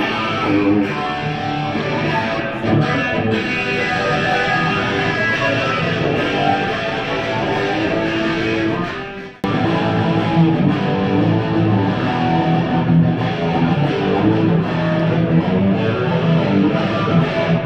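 Electric guitar played loud through a Marshall half-stack amplifier. The playing drops away briefly a little past halfway and comes straight back in.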